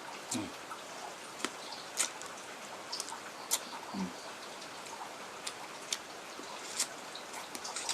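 Close-up mouth sounds of a person eating quail meat and noodles: irregular wet clicks and lip smacks of chewing, with two brief low murmurs, one just after the start and one about four seconds in.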